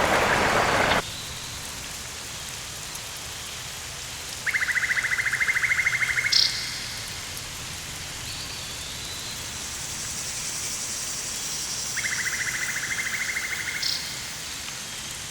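Steady hiss of running water, with two bursts of fast, even buzzing pulses about two seconds long, several seconds apart, each ending in a short click.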